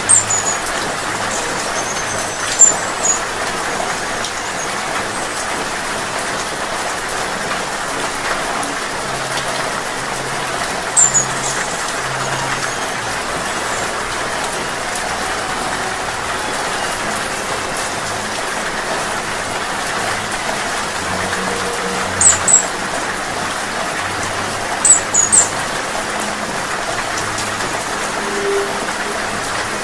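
Steady rain pattering on leaves and branches, with short, very high hummingbird chirps breaking in a few times: near the start, about three seconds in, around eleven seconds, and twice more after twenty seconds.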